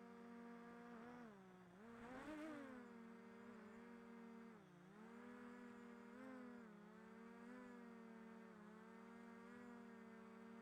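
Faint hum of a quadcopter drone's propellers, its pitch dipping and rising a few times as the motors change speed.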